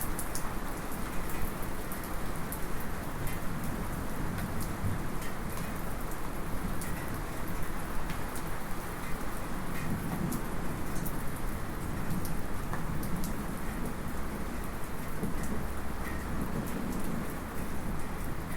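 Light rain falling steadily, heard from inside a house, with scattered small metallic drips ticking. Distant thunder rumbles low beneath the rain, swelling a couple of times.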